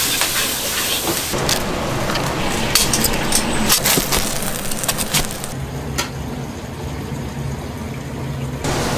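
Restaurant kitchen: a wok sizzling over a gas flame, then a run of sharp knocks and clinks from a knife cutting fried chicken on a board. A quieter stretch with a low steady hum follows, and the sizzle returns near the end.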